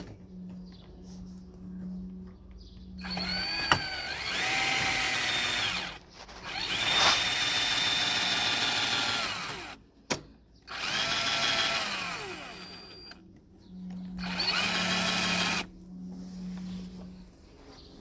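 Cordless drill-driver running in four separate bursts of a few seconds each, driving in the screws that fix a new handle to a uPVC door. Each run is a motor whine that rises in pitch as it spins up and falls as it stops.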